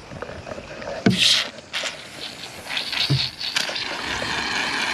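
Aerosol cans of shaving cream spraying, hissing in short bursts and then more steadily from about halfway through.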